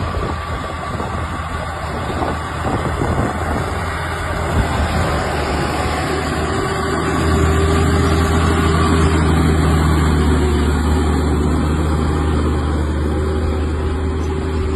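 Fendt 1167 Vario MT tracked tractor's 16.2-litre MAN diesel engine running steadily under load while pulling a disc cultivator, growing louder about halfway through as the tractor passes close.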